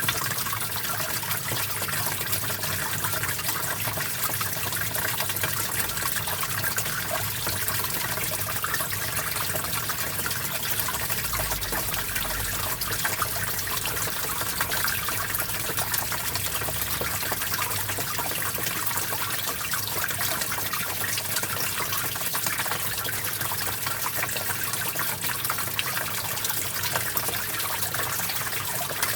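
Small stream of water flowing steadily, an even, unbroken trickling rush.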